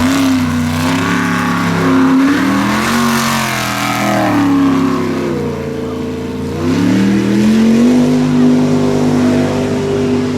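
Mega truck engine revving hard, its pitch surging up and falling back several times, then held high and steady over the last couple of seconds.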